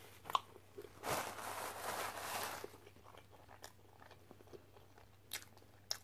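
A person eating fried fast food close to the microphone: a burst of crunching about a second in, then quiet chewing with a few sharp mouth clicks near the end.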